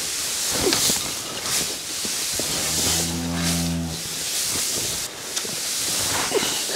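A Dexter cow mooing once, a low steady call of about a second and a half midway, over a steady hiss. The cattle are calling for feed, which the farmer takes for complaining about the hay.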